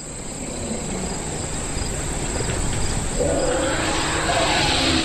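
Elephant herd calling as it crowds a waterhole: low rumbles and calls that grow gradually louder, with pitched calls strongest from about three seconds in.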